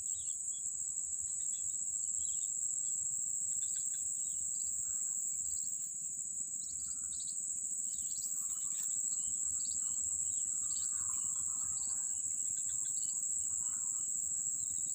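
Steady, unbroken high-pitched drone of insects, with scattered short bird chirps and calls over it.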